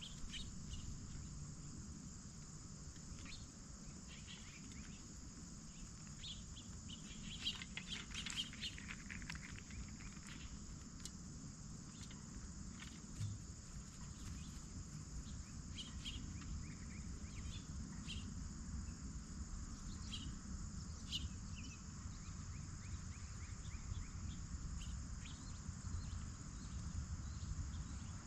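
Steady outdoor chorus of crickets, with scattered short bird chirps over it, a burst of several together about a third of the way in. A low background rumble runs underneath.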